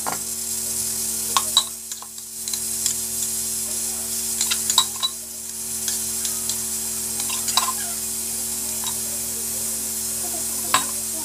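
Scattered light metal clinks and scrapes of a spoon against a steel tumbler as paste is scraped out of it, over a steady hiss and low hum.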